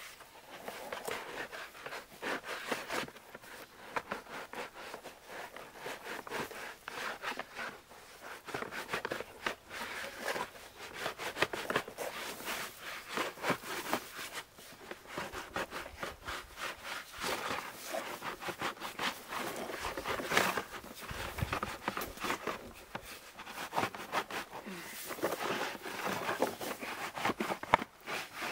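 Winter birch bark being pried and peeled away from a felled birch log with a flat blade: a continuous, irregular run of dry crackling and tearing clicks.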